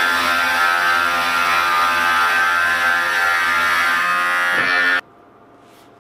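Electric cutting machine in a woodworking shop, its motor running at a steady high whine while the cutter bites into a wooden workpiece, throwing chips. The sound stops abruptly about five seconds in.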